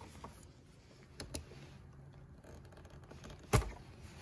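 Light plastic clicks from handling a Ford F-150 side-mirror glass that has just been popped off its housing: a couple of faint clicks about a second in, then one short, sharper click about three and a half seconds in.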